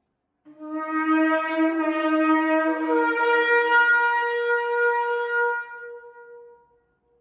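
A shofar blown in one long blast: it starts on a lower note, steps up to a higher note about halfway through, holds it, then fades away.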